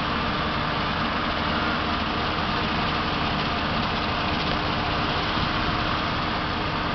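New Holland T7.270 tractor's six-cylinder diesel running steadily while driving a New Holland Roll Baler 135 Ultra round baler, an even machine drone with a constant hum and no changes in speed.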